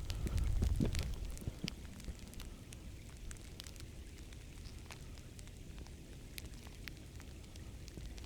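Sleet pellets ticking irregularly on clothing around a lavalier microphone, with a low rumble for the first second or so.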